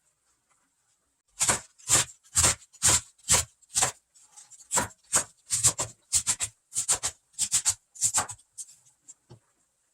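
Kitchen knife chopping vegetables on a cutting board: about two strokes a second, then a quicker, uneven run of chops.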